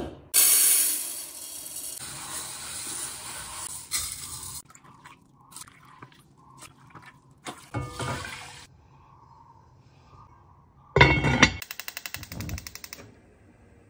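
Water running and pouring into a stainless steel pot while rice is rinsed, loudest in the first couple of seconds and fading into a steady hiss. Near the end a thump, then a quick run of sharp clicks from a gas stove burner's igniter.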